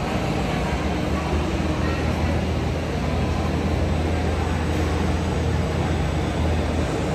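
A steady low engine rumble with an even hiss over it, unchanging throughout.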